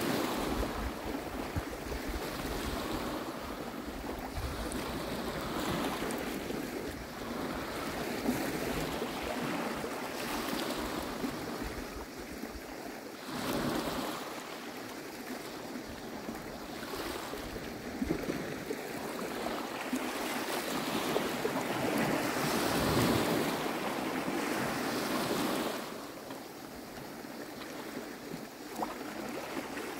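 Waves washing on a pebble shore, surging and ebbing every few seconds, with wind on the microphone.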